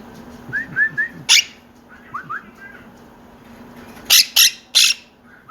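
Quaker parrots (monk parakeets) calling: a few short rising chirps, then a loud harsh squawk about a second in, more chirps, and three loud harsh squawks in quick succession near the end.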